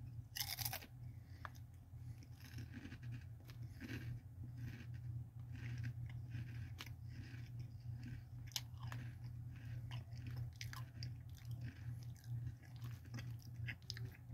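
A person chewing a mouthful of Ruffles ridged potato chips with the mouth closed, with many small irregular crunches throughout.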